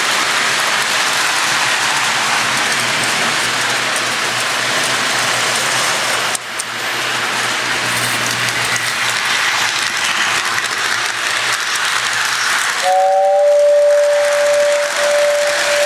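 Model train running with a steady hiss, then its whistle sounding about thirteen seconds in: briefly two notes, then one steady tone held to the end.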